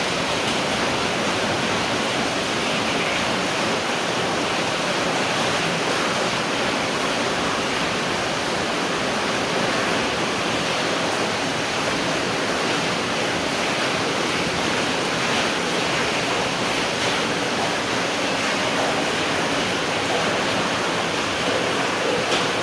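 Steady rain falling, an even hiss of many drops without distinct splashes.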